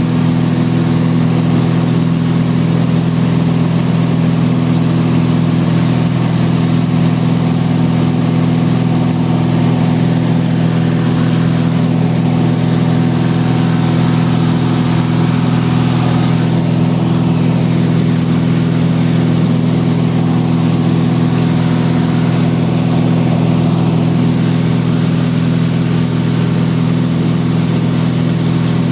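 A 1958 Cessna 172's Continental O-300 six-cylinder engine and propeller running steadily in flight, heard from inside the cabin, with a constant low drone and no change in power.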